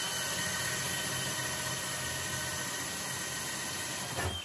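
DeWalt cordless drill running at a steady high speed, its bit boring through wood framing. It winds down and stops near the end.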